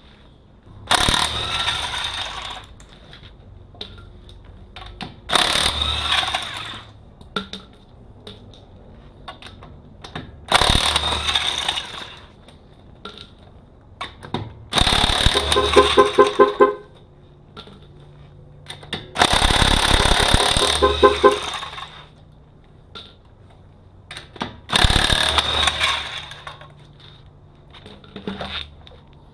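Impact wrench run in six short bursts a few seconds apart, with a fast hammering rattle, as it loosens the lug nuts to take a wheel off.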